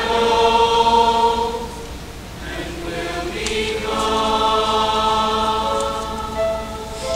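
Mixed choir singing sustained chords; the sound thins and softens about two seconds in, then the voices swell into a new full held chord.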